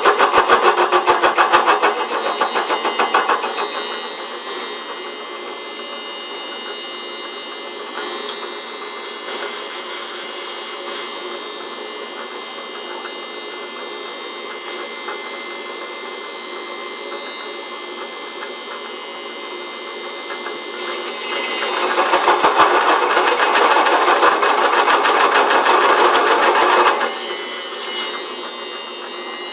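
Homemade metal lathe running under its belt drive with a steady mechanical whine. Twice, near the start and again for about five seconds later on, it turns louder and harsher as the cutting tool bites into the metal workpiece, a test cut whose poor result points to a dull cutter.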